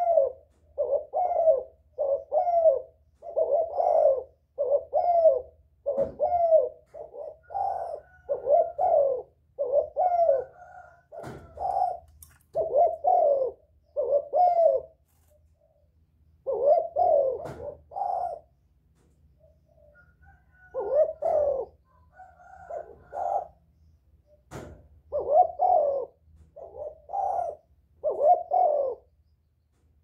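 Spotted dove cooing over and over, the kind of decoy dove's call used to get newly caught wild doves to start cooing. Its short coos come about one a second, in runs with a few brief pauses. A few sharp knocks sound now and then.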